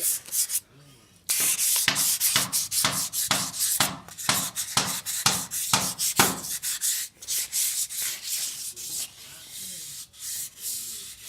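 Sandpaper rubbed by hand over metal scooter handlebars in brisk back-and-forth strokes, about two or three a second, sanding off old paint to prepare the bars for primer. The strokes pause briefly near the start and grow fainter in the last few seconds.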